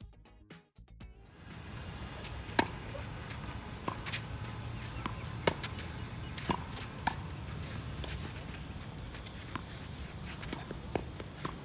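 Tennis rally: sharp pops of rackets hitting the ball and of the ball bouncing on the court, irregularly about once a second, over steady outdoor background noise. Brief music cuts out about a second in.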